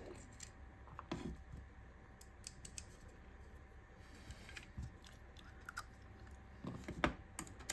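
Faint, scattered clicks and light taps of small rifle parts being handled and fitted, with a couple of sharper clicks near the end.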